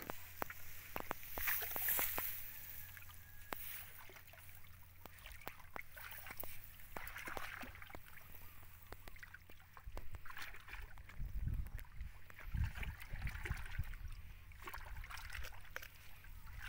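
Hands squelching and splashing in wet mud and shallow muddy water while groping for fish in a hole, with many small wet slaps and clicks. Low rumbles of wind on the microphone come in during the second half.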